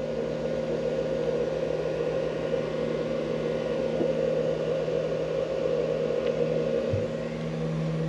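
Mini fridge compressor running on a 750-watt modified sine wave inverter, together with a noisy cooling fan: a steady hum with a light whir. The compressor has started under the inverter's load.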